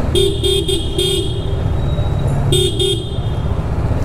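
Vehicle horn tooting in short beeps: four quick toots, then two more about a second and a half later. Under it, the low running of the motorcycle's single-cylinder engine and road noise.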